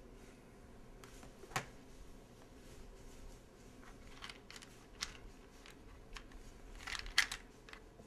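Scattered sharp clicks and light knocks of small objects being handled, the loudest about one and a half seconds in and a quick pair near the end, over a faint steady hum.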